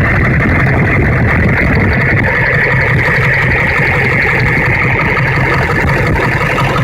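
Ford F-350's 7.3 L Power Stroke V8 turbo-diesel idling steadily, its shorter serpentine belt driving only the alternator and water pump with the AC compressor bypassed. The engine is running fine on the bypass belt.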